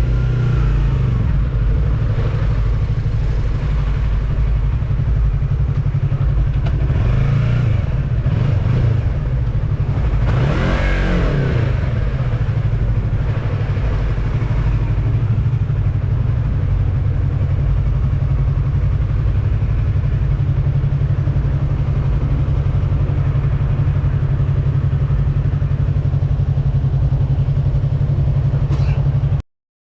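Yamaha MT-03 motorcycle engine running under way, its note steady for most of the time, rising and falling once about ten seconds in. The sound cuts off suddenly just before the end.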